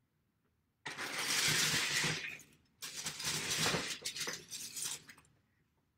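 Loose plastic Lego bricks clattering as a hand rummages through a bin of them, in two spells: one about a second in lasting a second and a half, then a longer one of about two and a half seconds.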